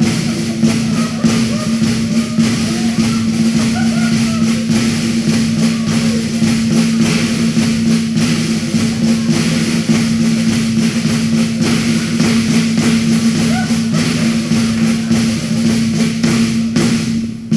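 Entrance music with a steady drum-kit beat and a held low note, with a few voices calling out over it in the first few seconds.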